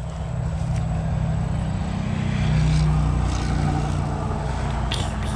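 A low engine drone, steady, swelling a little about halfway through and then easing off.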